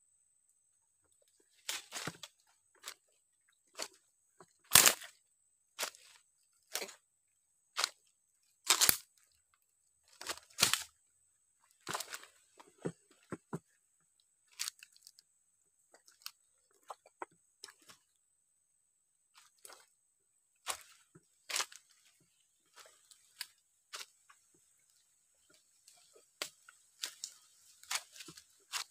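Dry leaf litter and twigs crunching and crackling in irregular sharp bursts, roughly one every second.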